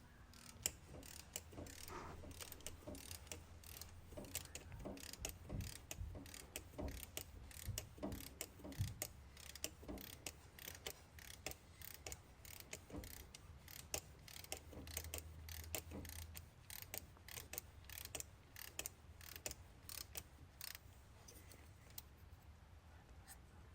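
Ratchet wrench clicking in uneven runs, a few clicks a second, as the new idler pulley's bolt is tightened; the clicking stops near the end.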